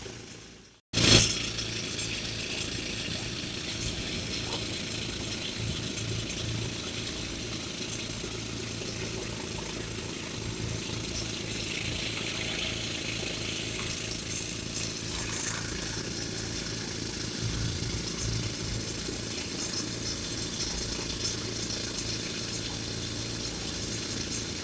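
Heavy diesel machinery engine running steadily with a low hum, cutting in suddenly about a second in after a brief silence.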